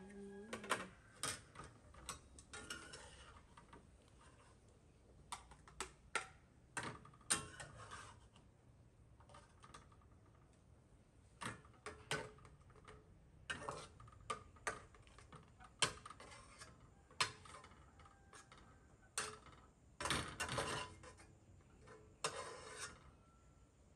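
Metal spatula knocking and scraping against a steel wok while stir-frying sliced carrots: irregular sharp clinks and short scrapes, a couple of dozen spread unevenly through the time.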